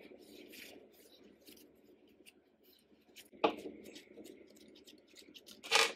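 Pliers and a thin rusty metal rod scraping and clicking inside the arm of an antique cast-iron sewing machine. Two louder sharp knocks come through, one about halfway through and one just before the end.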